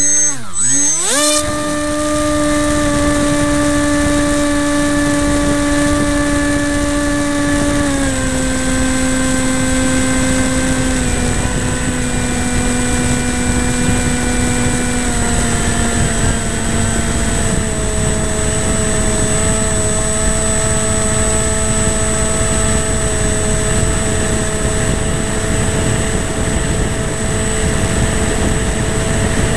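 Radio-controlled FPV plane's motor and propeller, heard from the camera on board: a whine that rises sharply in the first second or so at launch, then holds steady and steps down in pitch three times, with rushing wind throughout.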